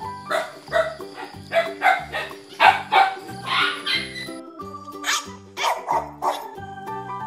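Puppies yipping and barking in quick short calls, about a dozen in two runs with a brief pause in the middle, over background children's music with a steady beat.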